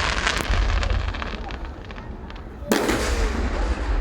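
Fireworks going off: a dense crackling of many small bursts that thins out over the first second and a half, then a sudden loud bang about two-thirds of the way through.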